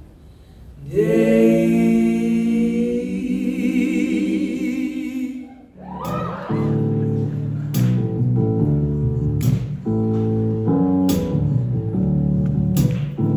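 Voices sing a long held chord with vibrato, which fades away about five seconds in. After a short break, a live band starts up with plucked bass and guitar notes, and a sharp percussive hit comes roughly every second and a half.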